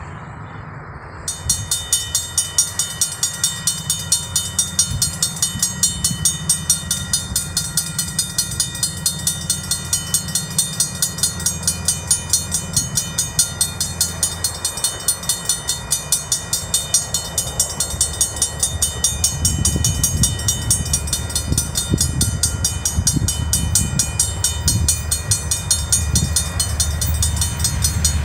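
Level-crossing warning bell starts ringing about a second in, with rapid, even strikes, signalling an approaching train. In the last third a train's low rumble and wheel knocks build up under the bell.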